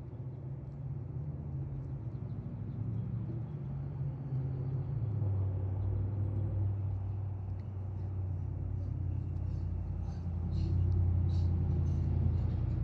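Low rumble of a motor vehicle engine, growing louder partway through and loudest near the end. Faint short high chirps or ticks sound over it.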